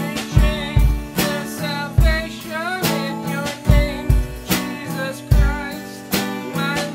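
Live band music: a strummed acoustic guitar and a Pearl drum kit played with sticks, with kick drum and cymbal hits keeping a steady beat, under a man's singing.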